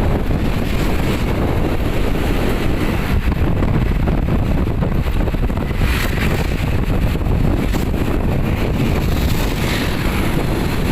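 Loud, steady wind buffeting on the microphone over a low rumble.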